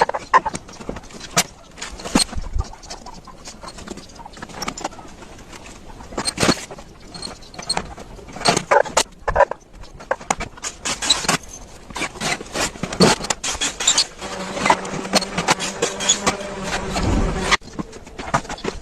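Woodworking workshop noise: irregular knocks and clicks of tools and wood being handled. About fourteen seconds in, a small motor joins with a steady hum, then cuts off suddenly a few seconds later.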